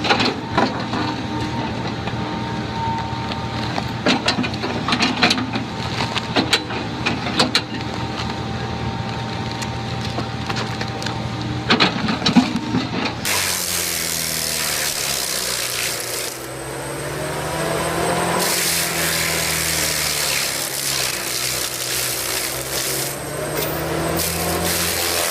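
Tree-cutting machinery at work. The engine runs steadily under scattered sharp cracks, then changes abruptly about halfway through to an engine rising and falling in pitch over a coarse sawing noise.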